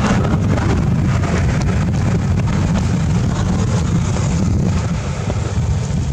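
Wind buffeting the microphone: a steady low rumble with no clear pitch.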